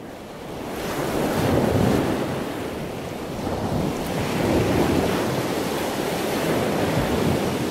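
Ocean surf breaking and washing up a sandy beach, a steady rush that swells and ebbs as the waves come in.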